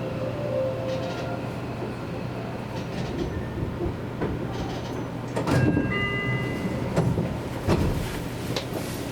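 Seibu Railway electric commuter train running between stations: a steady low hum with the wheels knocking over rail joints, the knocks bunched from about halfway through, and a brief high ringing tone just after them.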